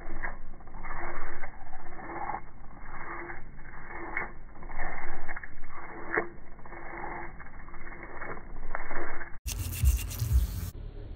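Toothbrush bristles scrubbing caked pastel coolant residue off the metal inside of a CPU waterblock, in back-and-forth strokes about once a second. Near the end there is a brief loud low rumble.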